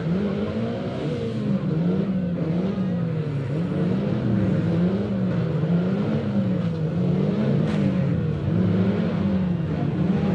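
Banger racing cars' engines revving, the pitch rising and falling regularly about once a second over the steady drone of the field.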